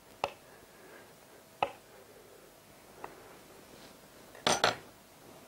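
Small kitchen knife clicking against a chopping board three times, about a second and a half apart, as zigzag notches are cut into a peeled pear, then two quick, louder knocks near the end.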